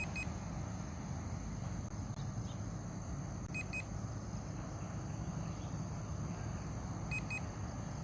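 Drone remote controller giving short double warning beeps, three times about three and a half seconds apart, over a steady background hum and rush.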